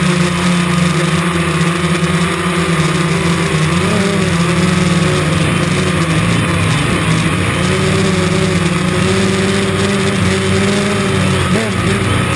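DJI Phantom quadcopter's motors and propellers humming steadily over a rushing noise, their pitch wavering and dipping now and then as the drone corrects for gusts.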